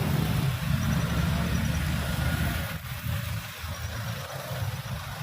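Road vehicle engine running with a low rumble, loudest at first and dropping away a little under three seconds in, as a vehicle goes by.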